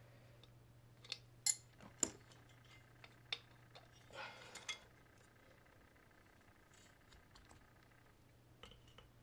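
Light metal clicks and scrapes of a hand tool working the lock washer and retaining nut on the siren rotor's motor shaft, as the washer's tabs are bent up into place. Several sharp clicks come in the first few seconds, a short scrape about four seconds in, then it goes quieter with a few light ticks near the end, over a faint steady hum.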